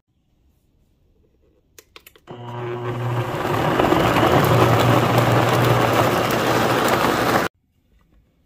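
Nutribullet blender running, pureeing softened guajillo and ancho chiles with garlic, onion and tomato into red enchilada sauce. A few clicks come just before the motor starts; it then runs with a steady hum for about five seconds and cuts off suddenly.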